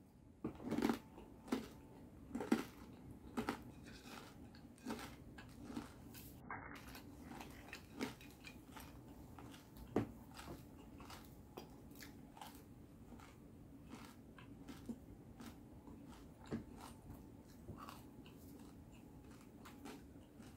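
Close chewing and crunching of crispy three-flavour salad with crispy fried fish, crispy pork and pork rinds. Irregular crunches, loudest in the first few seconds and once more about ten seconds in, then softer chewing.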